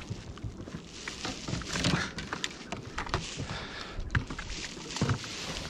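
Irregular light knocks and taps over a steady wash of wind and water on a small inflatable boat at sea, the sounds of the boat and fishing tackle being handled as a lure is dropped.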